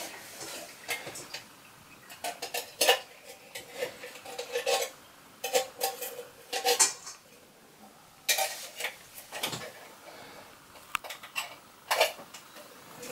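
Metal kitchenware clinking and clanking irregularly at a stainless-steel sink as an opened tin of hot dogs is handled and drained, some knocks ringing briefly.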